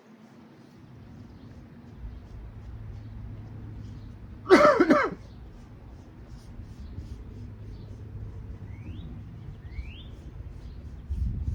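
A man coughs once, a short harsh cough about halfway through, over a steady low rumble.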